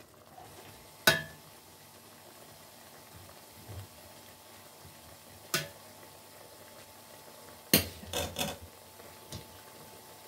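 A metal spoon clinking against a stainless steel pot while pork and vegetables are stirred: single sharp clinks about a second in and midway, then a quick run of three clinks near the end, over a faint steady simmer.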